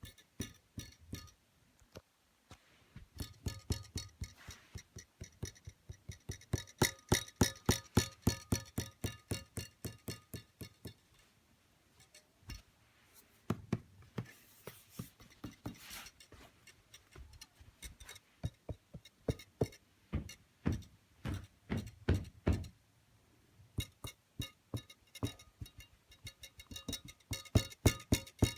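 2016 15-inch MacBook Pro being tapped and shaken, giving runs of rapid clicks, each with a short plucked, metallic ring: the sign of a loose part rattling inside the laptop's body.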